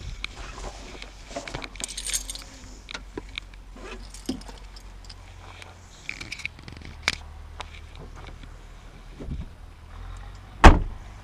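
Clattering and jangling of small hard objects, many short clicks and knocks over a steady low rumble, with one loud knock near the end.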